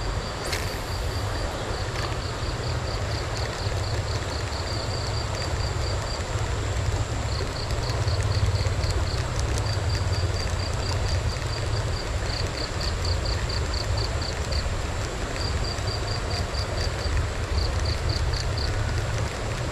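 Outdoor riverside ambience: a steady low rumble and hiss, with an insect chirping in quick runs of high pulses, about four a second, that stop and start. A thin steady high whine runs through the first several seconds.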